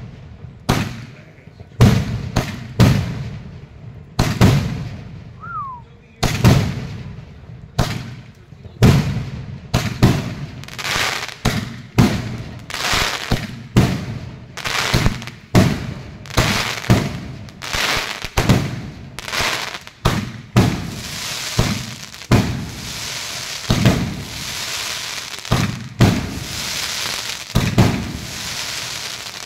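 Firework cake firing its shots in quick succession: a long run of launch thumps and aerial bursts, roughly one a second. Over the last several seconds dense crackling from the glittering star breaks fills in between the bursts.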